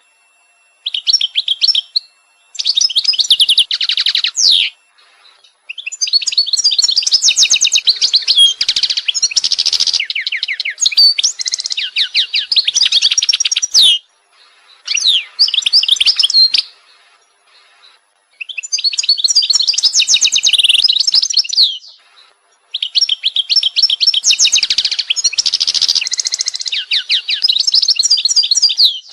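A bird singing: loud phrases of rapid high chirps and trills, each lasting from one to several seconds, with short pauses between them.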